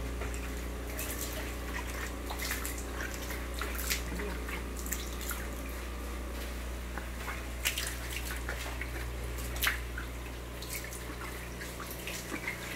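Egg-yolk feed mixture dripping and splashing into a catfish fry tank from a hand-held bowl, in scattered drops and small splashes, over a steady low hum.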